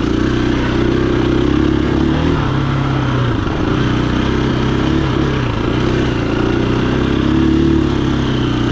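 KTM 350 EXC-F dirt bike's single-cylinder four-stroke engine running under load as the bike is ridden, its pitch rising and dipping with the throttle several times.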